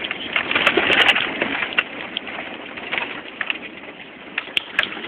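Cab noise of a Chevy truck driving over rough ground: a steady rush with frequent rattles and knocks.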